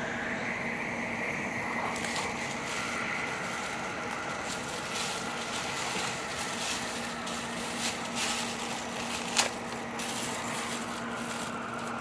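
Tokaido Shinkansen train running at speed, heard inside a passenger car: a steady rumble with a low hum, and a scatter of short sharp clicks, one louder click about nine seconds in.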